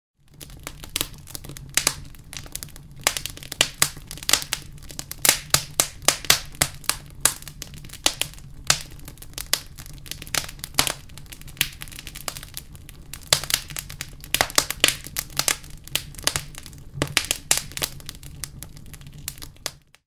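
Fire crackling: many sharp, irregular pops and snaps, some in quick clusters, over a low steady rumble.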